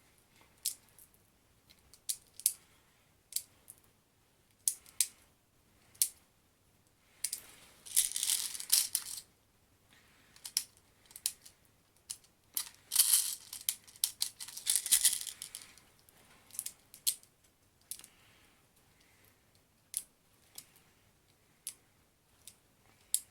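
Airsoft BBs being pressed one at a time into a spring airsoft pistol magazine by hand: irregular sharp plastic clicks, with a few longer bursts of rattling as pellets are handled.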